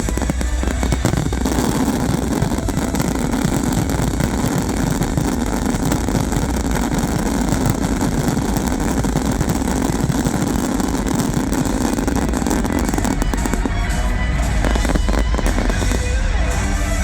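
A fireworks display going off in a dense, continuous barrage of bangs and crackles, with music playing alongside.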